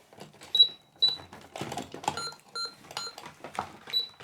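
Toy supermarket cash register beeping electronically, about six short high beeps, some two-toned, among plastic clicks and handling knocks as its buttons are pressed.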